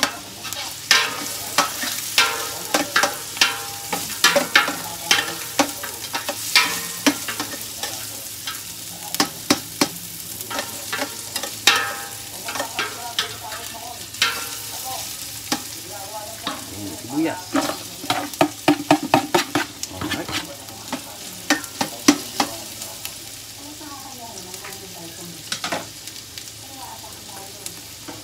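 Garlic and ginger sizzling in hot oil in a stainless steel stockpot, with a spoon scraping and clinking against the pot as it is stirred. The clinks come thick and fast for most of the time and thin out to a few near the end while the sizzle carries on.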